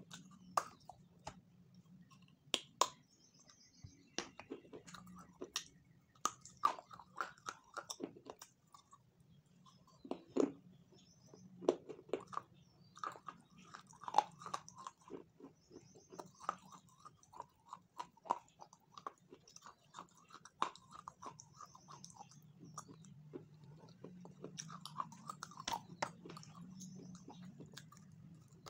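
Close-miked eating: a person biting and chewing a chocolate-coated piece of food, with irregular wet mouth clicks, smacks and soft crunches.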